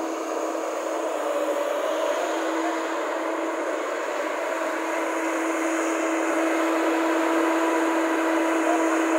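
JCB JS205 LC crawler excavator running, its diesel engine and hydraulics giving a steady drone with a constant hum, growing slightly louder, as the machine swings its boom and bucket.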